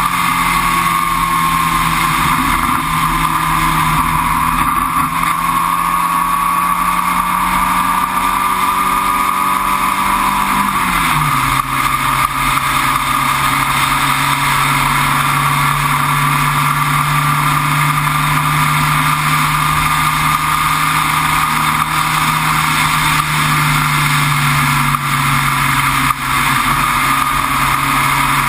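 Sports-racer race car engine running hard under way, heard on board, with a higher whine wavering above it and a constant rush of noise. About 11 seconds in the engine note drops over roughly a second to a lower pitch, then holds steady.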